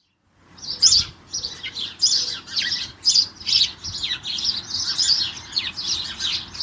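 A group of house sparrows twittering: many quick, overlapping chirps, starting about half a second in.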